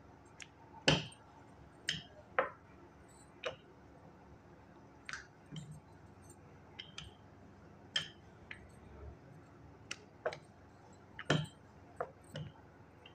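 Irregular sharp clicks and clinks while dough is rolled out with a wooden rolling pin on a marble counter: the pin knocking the stone and metal bangles clinking on the wrists. The loudest clicks come about a second in and near the end.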